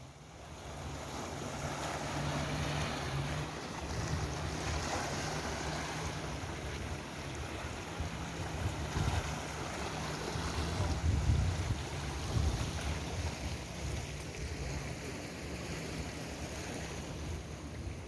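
Wind buffeting the microphone with a low uneven rumble, over the steady wash of sea waves.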